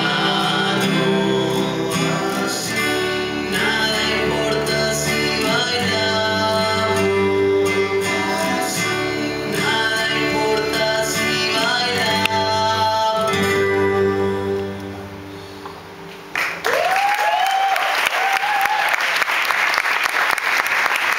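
Two acoustic guitars strummed under male voices singing a song in Spanish, which winds down and ends about two-thirds of the way through. Audience applause then breaks out and continues.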